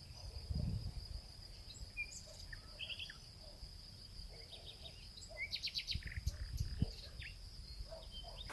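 Outdoor nature ambience: a steady high-pitched insect trill with scattered short bird chirps over a low rumble.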